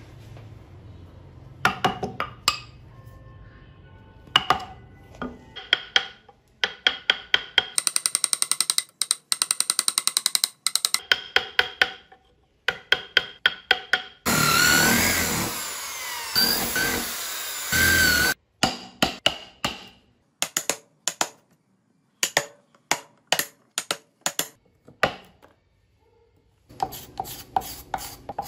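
Hand chisel carving wood: runs of sharp chisel cuts and taps into the wood with short pauses between, one run very rapid. A few seconds of dense, continuous scraping or grinding noise come near the middle.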